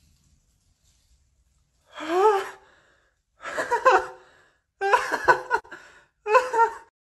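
A person's voice in four wordless exclamations, each with its pitch sliding up and down.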